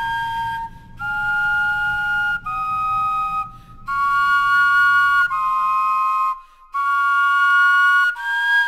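Wind instruments made from vegetables play a slow, flute-like tune in two-part harmony. It is a string of about seven held notes, each roughly a second long, with short breaks between them.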